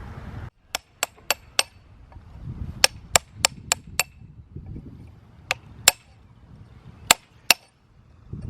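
Hammer striking a steel chisel on limestone, dressing a stone step: about a dozen sharp taps in quick groups of two to four. A steady noise cuts off just before the first taps.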